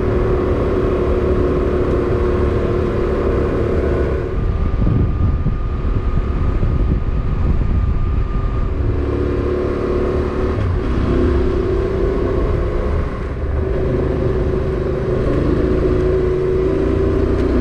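Motorcycle engine running while riding, with a steady low rumble beneath it. The engine note drops away about four seconds in and picks back up about halfway through.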